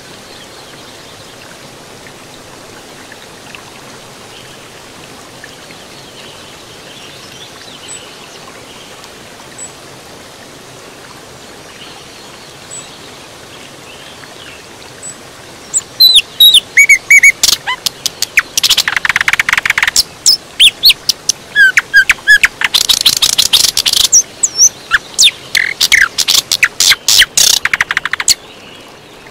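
Songbird song. At first only a faint hiss with a few thin, high chirps; about sixteen seconds in, loud, busy song of rapid clicking trills and quick whistled chirps sweeping up and down starts, then cuts off suddenly shortly before the end.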